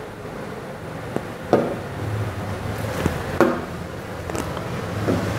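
A few short, sharp taps on an interactive touch-screen board, over a steady low room hum.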